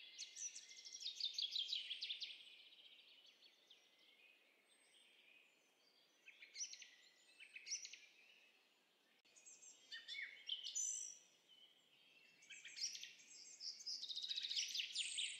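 Birdsong from a nature sound-effect recording: several birds chirping and trilling in short phrases, with a rapid trill in the first two seconds and a denser run of trills in the last few seconds.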